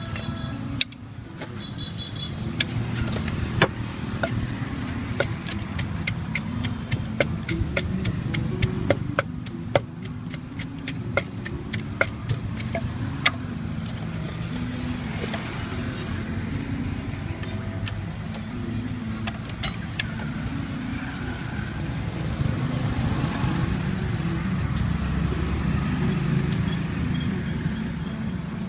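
Wooden pestle knocking and working in a clay mortar, a run of sharp knocks that thins out after the first half, over a steady low engine rumble.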